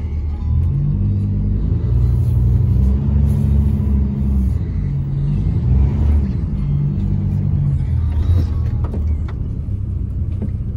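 Pickup truck's engine and road noise heard inside the cab while driving: a low steady rumble whose pitch shifts as the truck changes speed.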